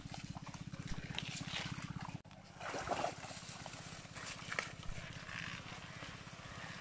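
Splashing and rustling of muddy pond water and water hyacinth as hands grope through it, with short louder splashes about three and four and a half seconds in, over a steady low drone.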